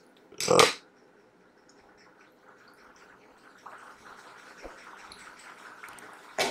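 One short voice sound about half a second in, then a faint, steady hiss of room noise with a few soft clicks.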